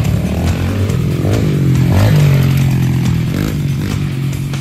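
Small kids' dirt bike engines running and revving. The pitch drops and climbs again about a second and a half to two seconds in, at its loudest there, then settles to a steady buzz.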